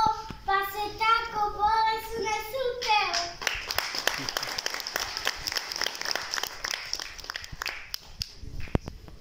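A young girl singing a phrase alone, ending about three seconds in on a falling note, then an audience clapping for about five seconds before the applause dies away.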